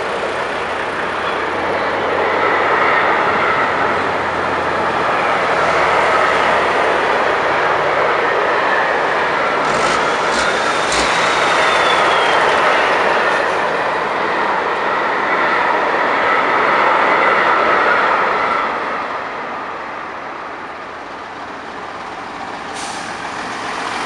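Heavy trucks driving slowly past one after another, including a Volvo tractor unit and a MAN dump truck: diesel engines and tyres swelling and fading as each goes by.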